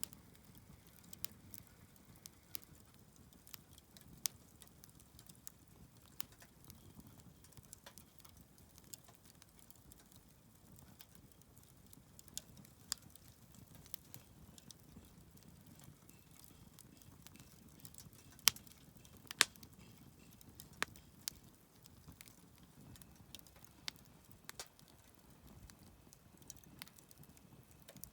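Wood fire crackling, with scattered sharp pops and snaps over a faint low rumble of flame; two louder pops come close together past the middle.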